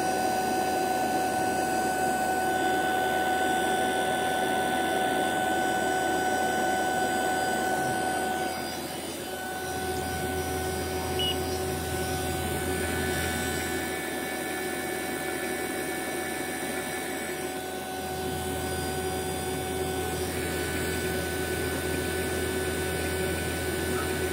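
Fieldpiece VP85 8 CFM vacuum pump running steadily with a constant hum and whine, pulling a deep vacuum on an empty refrigerant recovery tank, down to under 300 microns. Slightly quieter from about nine seconds in.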